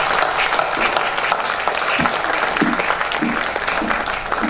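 Audience applauding: many hands clapping together, easing a little near the end.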